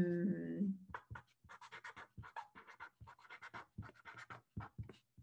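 Black marker writing on paper: a quick run of short strokes, about five a second. A woman's drawn-out word trails off in the first second.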